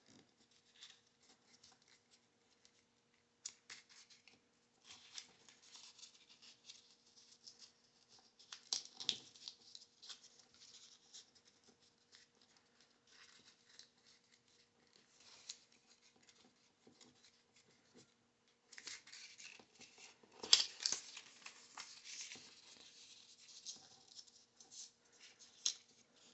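Paper rustling and scraping in irregular soft bursts as strips of paper are rolled by hand into tight spiral tubes, with a louder stretch of crinkling about three-quarters of the way through.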